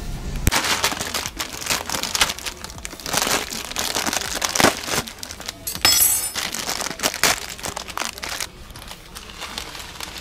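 Crinkling and rustling of packaging being handled in irregular bursts, with a short raspy streak about six seconds in; it quietens near the end.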